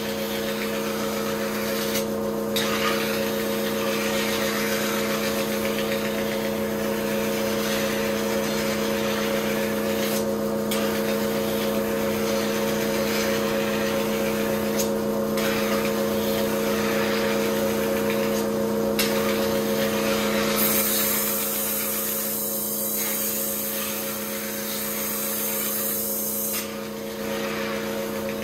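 Kitchen knife being ground on a motor-driven rotating whetstone: a steady motor hum under a grinding hiss. The hiss breaks off briefly about five times, and grows sharper and brighter for a few seconds in the second half.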